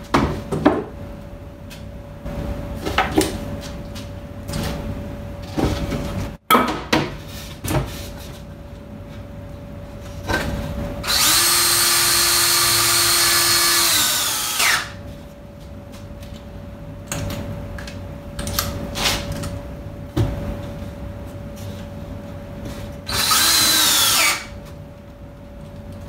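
Cordless drill driving screws into a wooden panel: one run of about three and a half seconds, then a shorter one near the end that winds down as it stops. Short knocks and clatter of boards being handled come in between.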